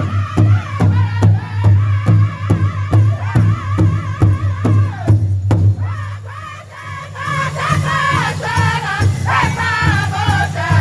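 Powwow drum group singing an intertribal song: a chorus of high, wavering voices over a large powwow drum struck in a steady beat, about three strokes a second. The singing drops back briefly about five seconds in, then the voices come in again, fuller and higher.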